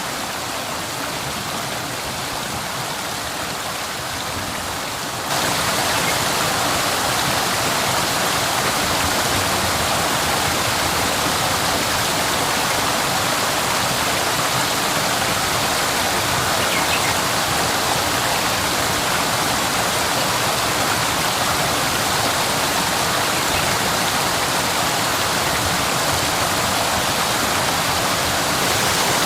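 Waterfall: a steady rush of falling water that steps up suddenly louder about five seconds in, then holds steady.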